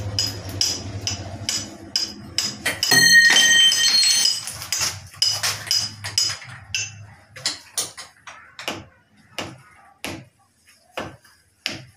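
Small metal clicks and taps of an Allen key and hands working on a chrome wall tap fitting as it is tightened, with a loud ringing metallic clink about three seconds in. The clicks grow sparser in the second half.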